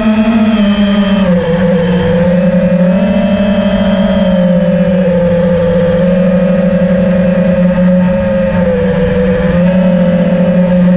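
Electric motors and propellers of a small FPV quadcopter whining steadily from on board, the pitch dipping a little about two seconds in and again near the end.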